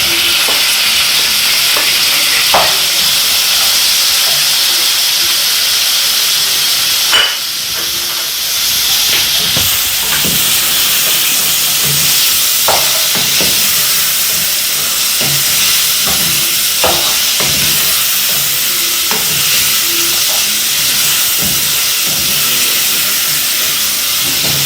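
Liver and onions sizzling steadily as they fry together in a pan, with occasional short taps and scrapes of stirring.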